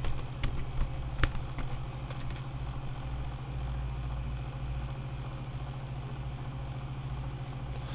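A few quick computer keyboard keystrokes, typing a short search word, in the first two seconds or so. A steady low hum runs underneath.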